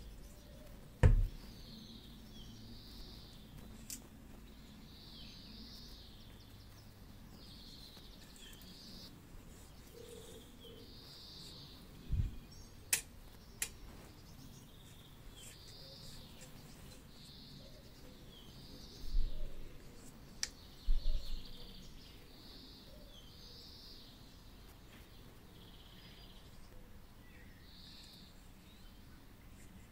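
A bird chirping repeatedly in the background, about one short call a second. A few louder knocks and bumps come from the metal hair drier being handled, near the start, in the middle and twice a little after two-thirds of the way through.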